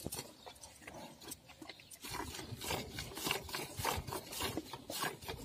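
Hand-milking a cow: jets of milk squirting from the teats into a steel bucket in a steady rhythm, about three squirts a second, fainter in the first two seconds.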